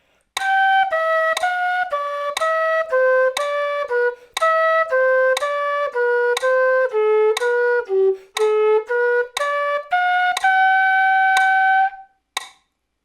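Quena (Andean notched end-blown flute) playing a tongued exercise of short notes, two per beat, stepping down in pairs, with a metronome clicking once a second. The passage ends on one long held note about ten seconds in.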